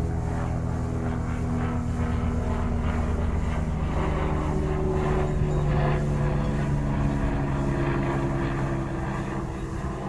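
British Seagull Model 40 Featherweight outboard, a single-cylinder two-stroke, running while its throttle is worked on a newly fitted cable. The revs rise about four seconds in and drop back near the end.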